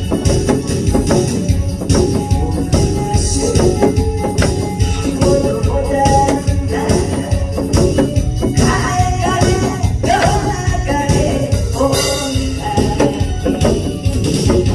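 Upbeat music with a steady, driving beat and a jingling tambourine, with a singing voice carrying the melody over it.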